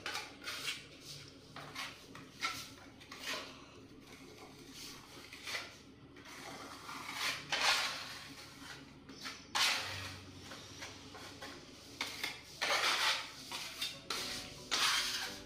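Metal putty knife scraping filler, in spaced strokes of spreading and scraping against the wall, with louder clusters in the second half.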